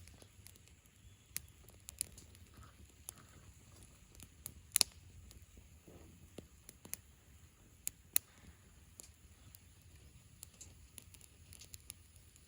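Wood campfire crackling: scattered sharp pops of burning wood at irregular intervals, the loudest about five seconds in, over a faint low rumble.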